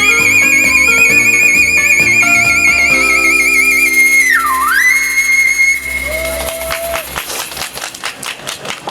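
Ocarina holding a long high final note with a fast wavering vibrato over sustained backing chords, then dipping sharply in pitch and back up before settling and stopping about six seconds in. A scatter of sharp claps follows near the end.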